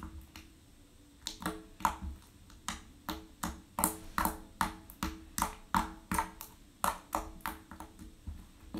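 Purple glitter slime being poked and kneaded by fingers, giving a run of short wet clicks and pops, about two or three a second, starting about a second in.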